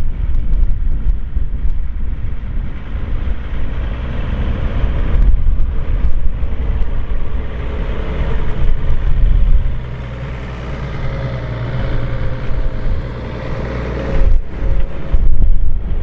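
Deutz-Fahr Agrotron 150 tractor's six-cylinder diesel engine running steadily under load while pulling a four-furrow plough through the soil. The sound breaks off abruptly a few times, and in the second half a steady engine hum stands out clearly.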